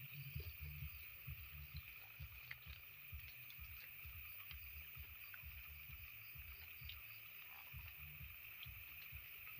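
Faint steady high-pitched drone of night insects, with irregular soft low bumps from the camera being handled.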